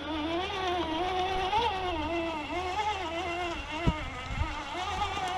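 Electric motor and gearbox of a radio-controlled Ford Bronco scale crawler whining as it climbs over rock under the load of a towed boat trailer. The whine's pitch wavers up and down, with a light knock about four seconds in.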